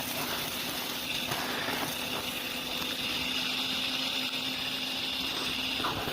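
Vacuum cleaner running steadily, a rushing airflow with a high motor whine and a low hum that drops out near the end.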